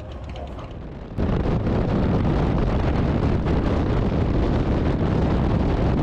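Motorcycle on the move: wind rushing over the microphone with the engine running underneath. Quieter at first, then suddenly much louder about a second in, and steady after that.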